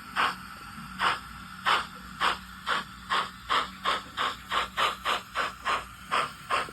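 A DCC sound decoder in a 00 gauge model of an SE&CR Class 01 0-6-0 steam locomotive playing steam exhaust chuffs that quicken steadily, from under one a second to about three a second, as the model pulls away and picks up speed. A faint steady hum runs underneath.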